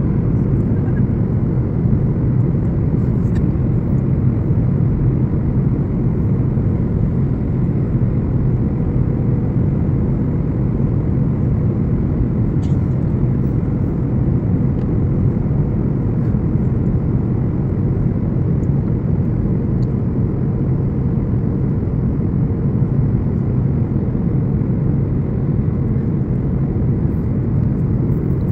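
Steady low rumble of an airliner cabin during descent: jet engine and airflow noise heard from a window seat beside the engine, with a faint steady hum above it.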